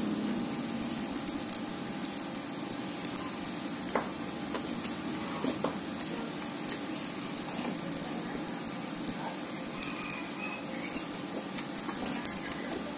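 Thin enamelled copper wire being hand-wound around a small blower motor's stator core: soft rustling and scattered light, irregular ticks over a steady low background noise.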